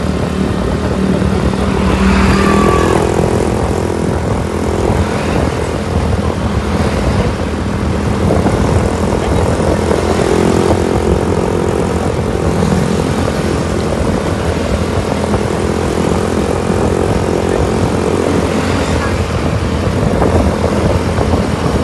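Vehicle engine and road noise at speed, loud and steady, with a shift in engine pitch about three seconds in.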